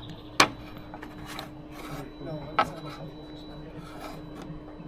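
Scraping and rubbing from tools and metal being handled, with sharp clicks about half a second in and again about two and a half seconds in, over a steady low hum.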